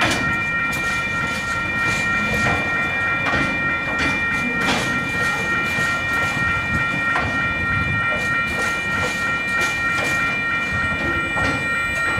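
Freight train wagons rolling slowly over a level crossing, the wheels knocking over the rail joints every second or two, while the crossing's warning bell rings continuously as a steady high ringing.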